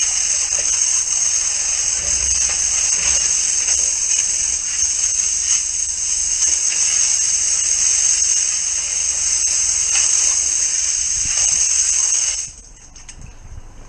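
High-pressure drain jetter spraying water through its hose into the drain chamber: a steady high hiss that cuts off suddenly near the end.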